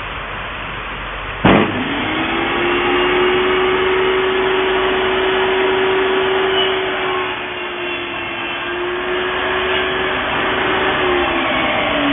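XCORT XMY01-255 1800 W table saw with a 254 mm blade running and cutting a wooden board: a steady whine over a noisy hiss, with one sharp knock about one and a half seconds in. The whine's pitch sags slightly near the end.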